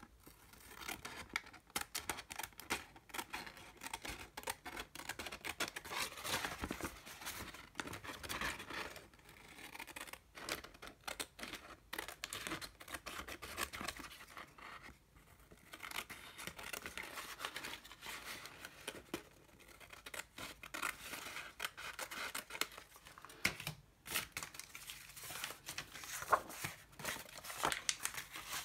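Scissors cutting through a sheet of painted paper: long runs of quick snips, pausing briefly a couple of times, with the paper crinkling as it is turned.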